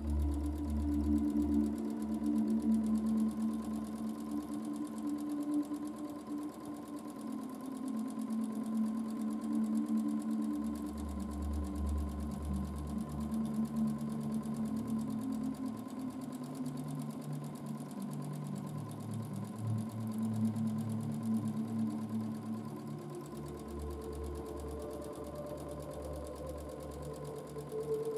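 Domestic sewing machine stitching continuously while a quilt is moved under its free-motion foot for free-motion quilting. A low hum comes and goes in stretches.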